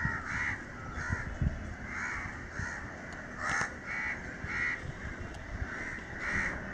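Crows cawing over and over, a steady string of harsh caws about one every half second to a second.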